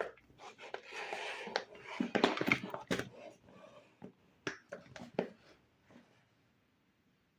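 Small plastic toy pieces and packaging being handled: irregular clicks and taps with bursts of rustling, a few sharper clicks about five seconds in, then it goes quiet.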